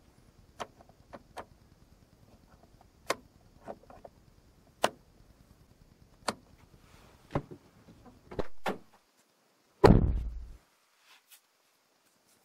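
The plastic slide switch on a Suzuki Jimny Sierra's overhead dome light clicking as it is moved between positions, with about ten sharp clicks over eight seconds or so. A heavier thump about ten seconds in is the loudest sound.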